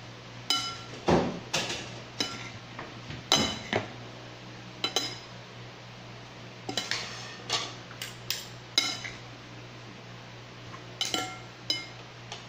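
Two metal serving spoons tossing salad in a glass bowl, clinking against the glass and each other in uneven bursts, each clink ringing briefly.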